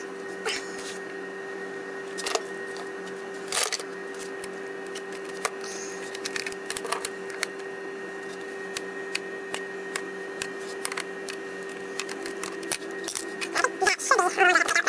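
Small watch screwdriver working the screws on the plastic underside of a Dell XPS laptop: scattered light clicks and taps, a couple of louder knocks, and a louder run of squeaky scraping near the end, over a steady hum.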